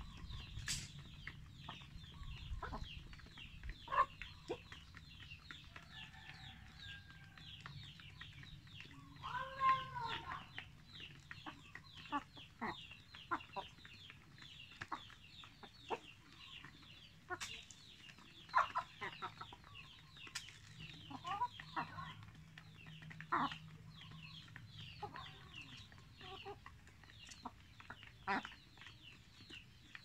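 Flock of Barred Plymouth Rock hens clucking while feeding, with a few louder calls and scattered sharp clicks and taps. A dense high chirping runs underneath throughout.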